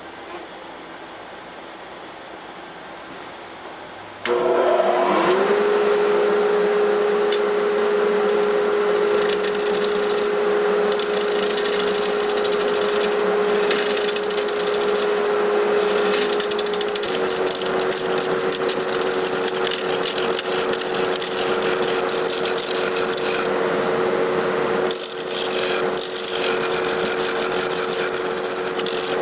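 Wood lathe starting up about four seconds in, its motor whine rising quickly to a steady pitch that shifts slightly partway through, with the rough scraping of a turning tool cutting the spinning wet pecan blank as the vessel's lip is shaped.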